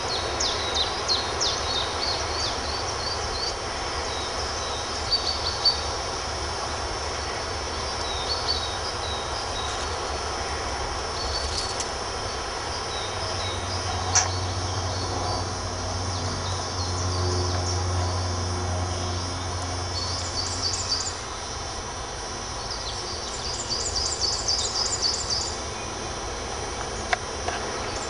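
Woodland birdsong: several birds singing rapid, high chirps and trills over a steady outdoor background, busiest near the start and again toward the end. A low drone comes in for several seconds midway.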